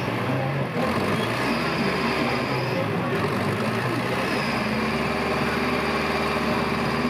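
LKT 81 forestry skidder's diesel engine running steadily under load in deep mud, with a brief dip just before a second in.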